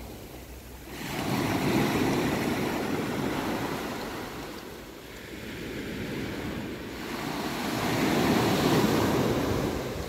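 Sea surf: small waves breaking and washing up the shore, then drawing back. The wash swells twice, about six seconds apart, rising about a second in and again near the end.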